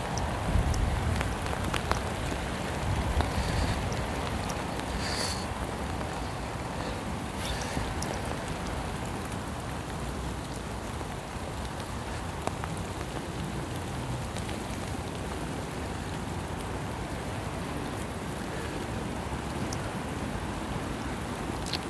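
Steady rain falling and pattering on wet ground as an even hiss, with a few sharp clicks of drops. A low rumble of wind on the microphone comes through in the first few seconds.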